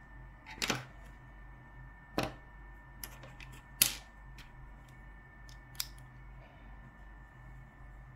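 Several irregular sharp clicks and taps from a Logitech MX Master mouse being handled and its buttons pressed, the loudest about four seconds in, over a faint steady electrical hum.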